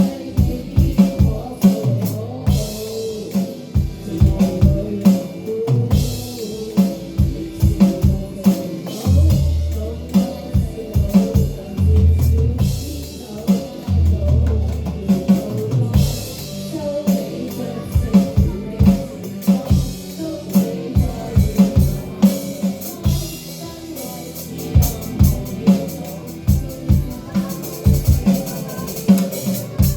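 Rock-pop band music led by a drum kit playing a busy beat, with bass drum and snare strokes over sustained bass notes.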